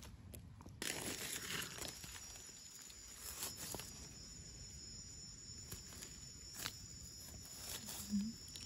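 Dry leaf litter rustling and crackling as gloved hands brush leaves aside and dig a mushroom out of the soil with a knife, with scattered sharp clicks of twigs and the blade.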